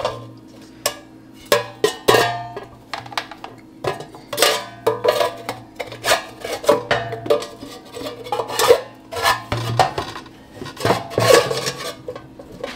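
A Gourmia air fryer's metal basket and perforated crisper plate clatter and clink as they are handled and fitted together, in a run of irregular knocks and light scrapes.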